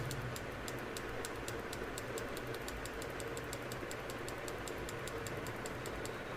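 A rapid, even ticking of light clicks, about seven a second, over a steady low hum.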